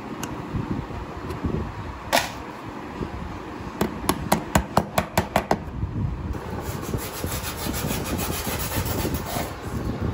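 A hammer tapping a punch to set the metal rivet that fastens the chin strap to a fibreglass helmet shell: one strike, then a quick run of about nine sharp taps.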